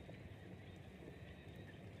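Near silence: a faint low rumble with a faint steady high tone, and no distinct sound event.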